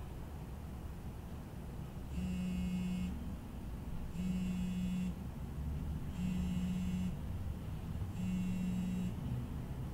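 Mobile phone buzzing on a bedside surface in four one-second pulses, about two seconds apart.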